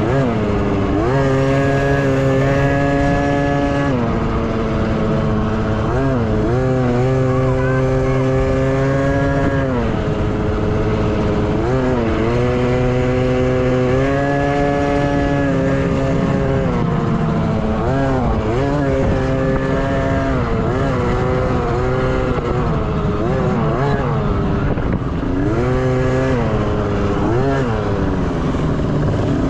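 KTM 50 two-stroke dirt bike engine racing off-road: it revs up, holds high revs for a few seconds, then drops off, over and over, with the throttle rolled on and off.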